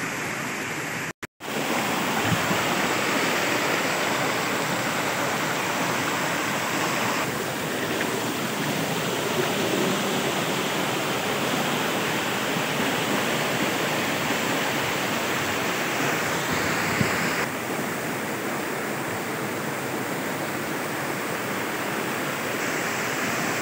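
Steady rush of a small waterfall splashing down over boulders into a rocky stream, broken by a brief silent gap about a second in.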